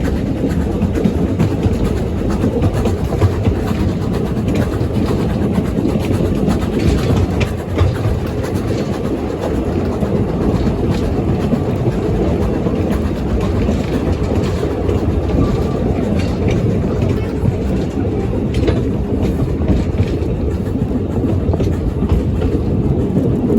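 Narrow-gauge train with four coaches running along the line: a steady, loud rumble of wheels on rail with scattered clicks over the rail joints.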